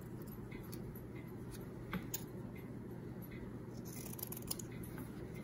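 Scissors trimming small pieces of printed paper: a few faint snips, one about two seconds in and a short cluster near four seconds.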